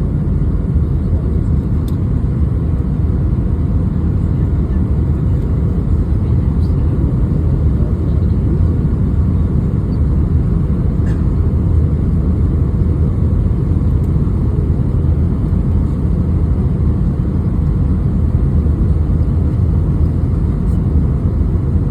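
Steady low rumble of cabin noise inside an Airbus A319 on approach to landing: engine and airflow noise, even throughout, with a few faint clicks.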